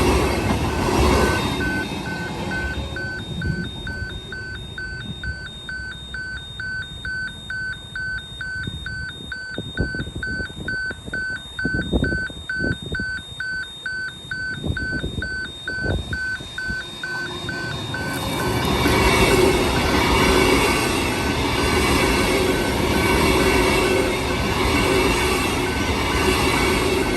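Railway level crossing warning bell ringing, about two even dings a second, while trains pass. A train runs by at the start and a louder train runs past from about two-thirds of the way in, with a few clunks of wheels over rail joints in between.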